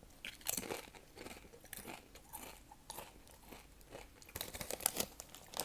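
Close-miked chewing of crunchy Doritos Cool Ranch tortilla chips: irregular sharp crunches, coming thicker about four and a half seconds in.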